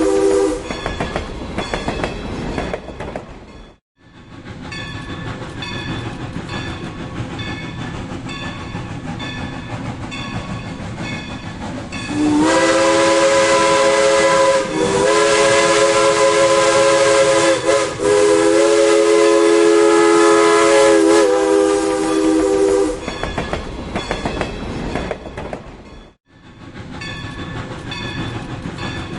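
Steam train running past, its wheels clicking over the rail joints, with a whistle chord ending just as it begins. About twelve seconds in the locomotive's whistle sounds one long blast of several notes at once, broken twice for an instant, for about ten seconds. The sound drops out to near silence for a moment twice.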